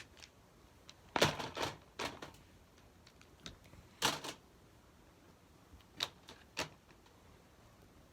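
Fidget toys being handled and put into a storage bin: scattered clicks and clatters, a cluster of them about a second in, another at about four seconds, and two short knocks around six seconds.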